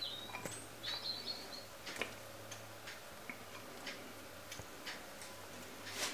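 Faint scattered light clicks of cooked mung beans dropping by hand onto a ceramic plate, with a couple of short high chirps about a second in.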